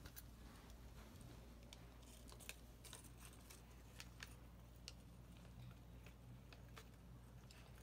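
Near silence: faint, scattered small clicks and rustles of plastic RC-car parts being handled, over a low steady hum.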